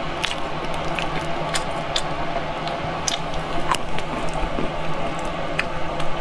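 Close-up wet chewing and smacking while eating a sticky, gelatinous braised deboned pig's trotter, with many short sticky clicks scattered through, over a steady low background hum.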